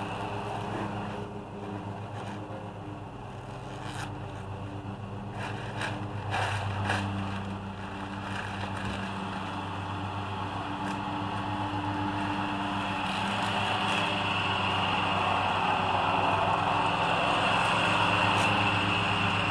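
A steady motor hum runs throughout, with scraping and rustling of plastic house wrap being handled and a few light clicks about four to seven seconds in; the rustling hiss grows louder in the last few seconds.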